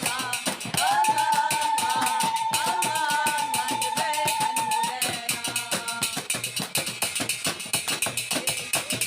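Music: a sung praise song over a fast, steady tambourine and hand-drum beat. About a second in, a voice holds one long, slightly wavering note for about four seconds.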